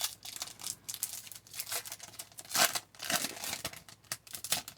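Trading card pack wrapper crinkling and tearing, a quick string of short rustles and rips.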